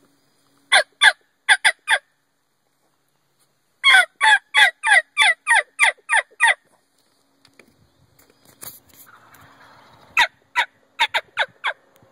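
Turkey yelps made on a hunter's turkey call, imitating a hen: a run of four sharp notes, a longer run of about nine, then six more near the end.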